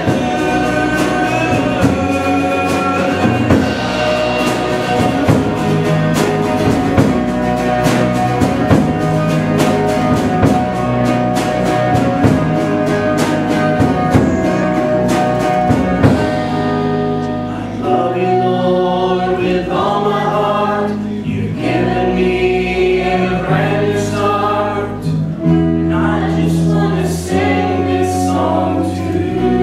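A live praise band playing and singing: acoustic guitar, electric bass and drum kit under several voices. About halfway through, the drums drop back and the music turns softer, with the singing carried over sustained chords.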